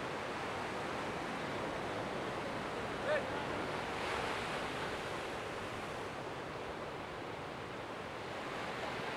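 Steady rush of ocean waves breaking on a reef, an even wash of noise. About three seconds in comes one short, pitched call.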